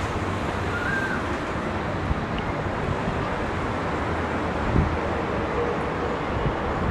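Steady low rumble of city traffic, with wind buffeting the microphone. A faint short whistle comes about a second in.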